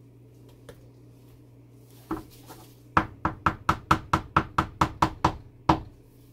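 A spoon knocking against a wooden loaf mold and into thick hot-process soap batter as it is pressed in: a few knocks, then a quick run of sharp knocks at about five a second for a little over two seconds, and one last knock near the end.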